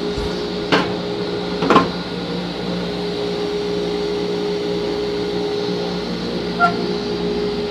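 Table saw and dust-collector blower running with a steady electric hum. Two sharp knocks come about a second in and a second later, with a fainter one near the end.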